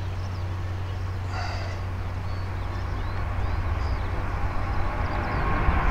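Airbus A350's Rolls-Royce Trent XWB engines at takeoff thrust as the airliner lifts off: a low steady rumble that grows louder toward the end. Faint bird chirps sound over it.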